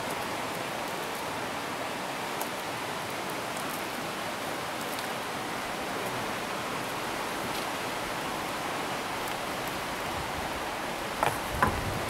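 Steady, even rushing noise with no distinct events, and a couple of faint clicks near the end.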